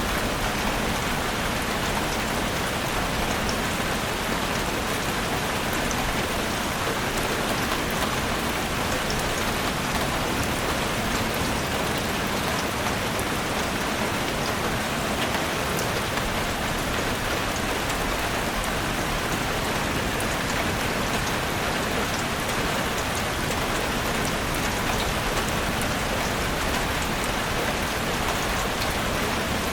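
Steady heavy rain falling, with individual drops ticking through the hiss.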